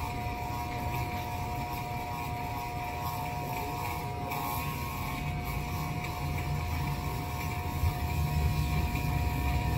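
Corded electric hair clippers buzzing steadily while cutting a man's short hair.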